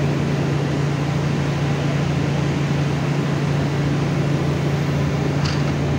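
Steady industrial machinery drone with a strong low hum, unchanging throughout.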